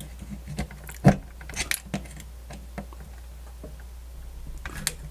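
Scattered small clicks and knocks of radio parts being handled and pushed into place during reassembly, the sharpest about a second in, over a steady low hum.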